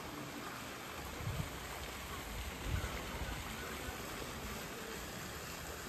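Steady splashing hiss of garden fountains spraying water, with a couple of brief low thumps about one and three seconds in.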